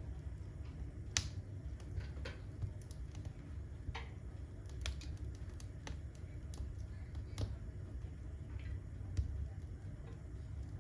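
Firewood burning in a fireplace, crackling with irregular sharp pops over a low steady rumble of the fire.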